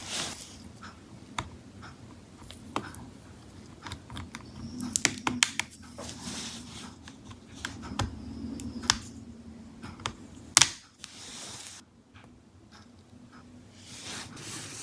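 Scattered small clicks and taps of hand tools and fingers working on the internals of an opened laptop, with one sharper click about ten and a half seconds in.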